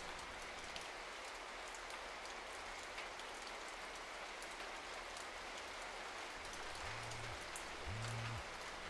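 Steady hiss dotted with fine crackling ticks. From about seven seconds in, low buzzing pulses about once a second join it.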